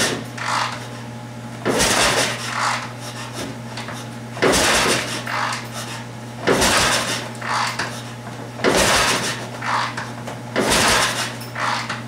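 A 750 Triumph twin being kicked over repeatedly on its kick-starter, about one kick every two seconds, six times. Each kick is followed by a softer second sound. The engine is being cranked with a compression gauge in the left cylinder and the throttle wide open, for a compression test of the warm engine.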